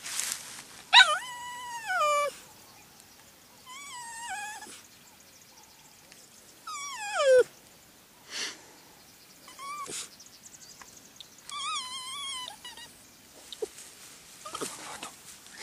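Small puppy whining at a crab in front of it: a series of high, drawn-out whines with pauses between, some falling in pitch and some wavering.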